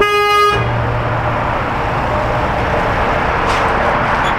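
A car horn gives one short toot right at the start. Then the steady rush and low engine hum of an SUV towing a jet-ski trailer rolling slowly past.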